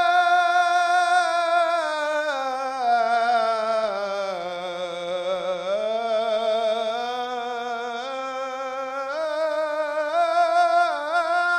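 A man's unaccompanied Islamic devotional chant (ibtihal), one syllable, 'yā', drawn out in a single long melismatic note with no break. The voice holds high, sinks slowly to a low point about five seconds in, then climbs back up and wavers in quick ornamental turns near the end.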